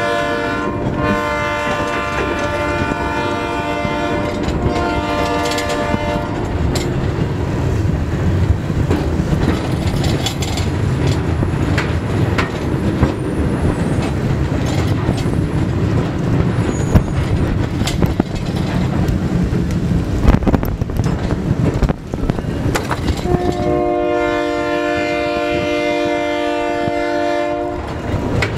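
Multi-note train horn sounding in several blasts that stop about six seconds in, and again in one long blast near the end. In between, a slow freight train of retired Budd R32 subway cars and steel gondolas rolls past with a low rumble and scattered clicks and clanks from wheels and couplers on street-running rail.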